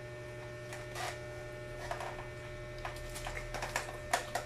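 Steady electrical hum under scattered short clicks and smacks as children eat chicken feet with their hands over a foil-covered tray. The clicks are loudest and come closest together near the end.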